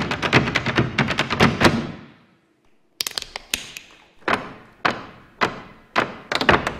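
Irish dance hard shoes tapping out a rapid rhythm that stops about two seconds in and dies away in echo. After about a second of silence, single heavy stamps ring out about every half second, each echoing, and rapid tapping picks up again near the end.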